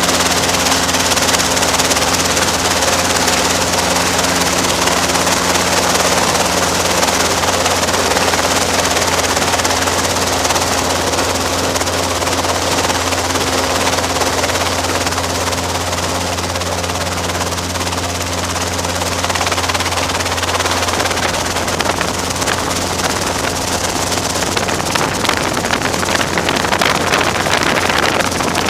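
Robinson R22 helicopter running steadily: a constant low rotor and engine drone with a dense rushing noise over it, easing slightly past the middle and building again near the end.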